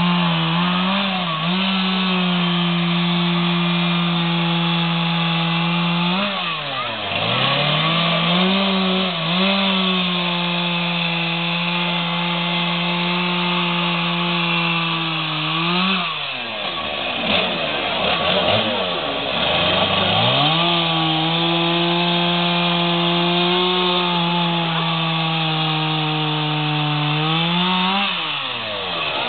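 Petrol chainsaw carving a log, the engine held at a steady high pitch under full throttle. The revs drop and climb again about a quarter of the way in, sag for several seconds around the middle, and fall again near the end as the carver eases off the throttle between cuts.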